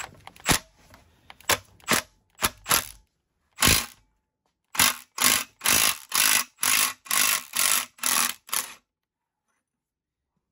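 Cordless impact wrench hammering in short trigger bursts, a dozen or more, as it turns a blind bearing puller to draw a rear needle bearing out of an Eaton supercharger housing. The bursts come closer together from about five seconds in, then stop near the end.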